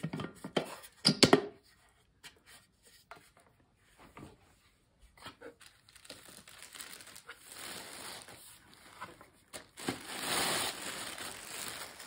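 A clear plastic bag crinkling and rustling as it is pulled off a coffee maker, loudest near the end. A few light knocks come in the first second or so.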